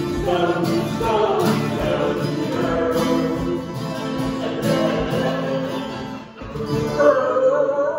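Two acoustic guitars strummed in a lively beat under a group of voices singing a comic song. About six seconds in the strumming stops and the voices hold one long note.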